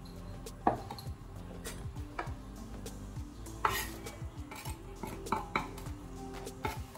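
Scattered clinks and light knocks against a glass mixing bowl as shredded cabbage is tipped into it, the sharpest a little over halfway through, with faint background music.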